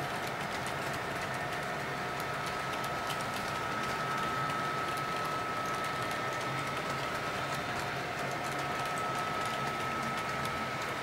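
Model railroad freight cars rolling past on the track, their wheels clicking lightly and unevenly over the rail joints, over a steady high whine.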